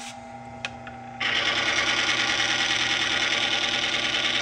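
Bench-top oil friction test machine switched on about a second in: its small electric motor spins the test bearing in a cup of Motorcraft 5W-30 dosed with UHP Innovation HP Shot, starting abruptly and then running steadily.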